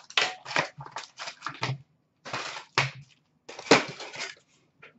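A cardboard hobby box of Upper Deck SPx hockey cards being opened and its foil packs taken out: a run of short rustles, scrapes and crinkles in three clusters.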